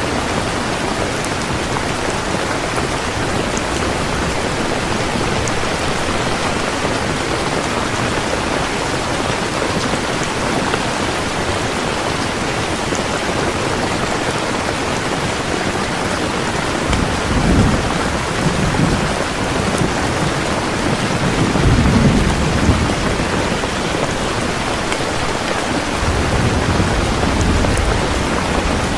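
Heavy rain pouring steadily, with low rumbles of thunder swelling up three times in the second half.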